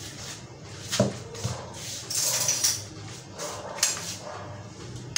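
Stainless steel plate, bowl and spoon knocking and scraping together as butter is handled: a sharp clink about a second in, a short scraping stretch a little after two seconds, and another clink near four seconds.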